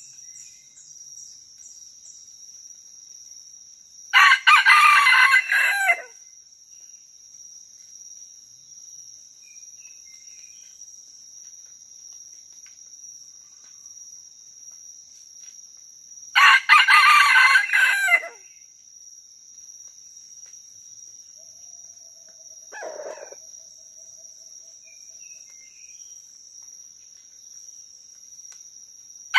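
Red junglefowl rooster crowing: two loud, short crows, about four and sixteen seconds in, and a fainter, shorter call near twenty-three seconds. A steady high insect drone runs underneath.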